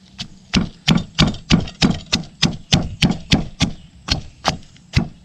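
Pestle pounding herbs (lemongrass, galangal, kaffir lime leaves, garlic) in a mortar, in a steady rhythm of about three strikes a second.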